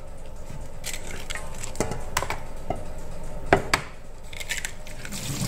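Eggs being cracked one after another on a stainless steel bowl: a string of sharp taps and clicks of shell on metal, several in the first four seconds.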